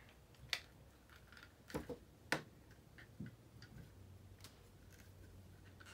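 Small hard-plastic toy parts clicking and tapping as a tiny gun is fitted into a G.I. Joe Ram Cycle: a few sharp clicks in the first two and a half seconds, then fainter ticks.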